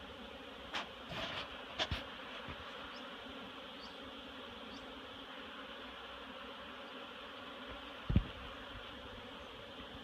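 Steady buzzing of many honeybees flying around their hives, the colonies active on a mild winter day. A few light knocks come in the first two seconds, and a single low thump about eight seconds in.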